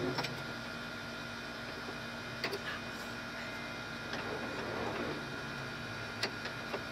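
A few sharp metal clicks and taps from hand tools on a golf cart's rusty rear brake drum and hub: two near the start, one about two and a half seconds in, and two near the end, with handling rustle in between. A steady hum runs underneath.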